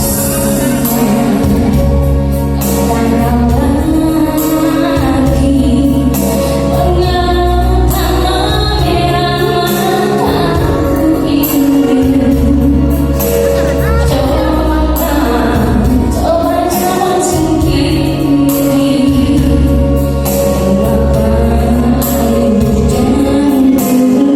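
A song with a singing voice over steady bass and a regular beat.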